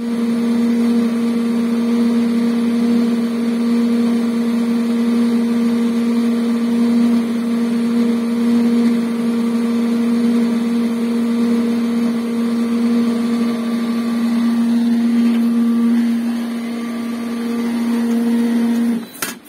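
Swimming-pool pump on a sand filter running with a loud, steady hum, which stops suddenly near the end. The hum goes with the pump sucking in air at a badly sealed fitting, which the owner traces to a poor rubber gasket.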